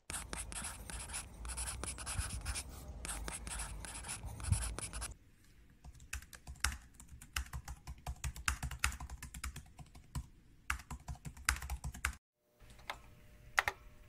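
Pencil scratching across notebook paper in handwriting strokes for about five seconds, then typing on a laptop keyboard, separate key clicks at an uneven pace. Shortly before the end the sound cuts out briefly, then a few fainter key clicks over a low hum.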